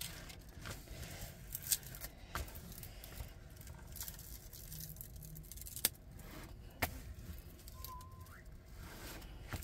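Quiet handling of a diamond painting canvas: light rustling with a few sharp, separate clicks, and a brief faint rising squeak near the end.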